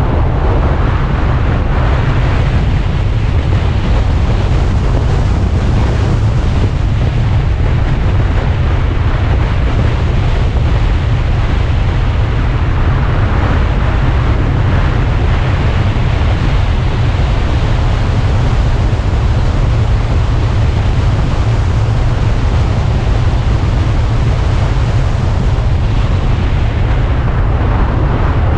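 Steady wind noise buffeting the microphone of an Alfa Romeo Spider on the move, over the low, even drone of the car's engine and tyres.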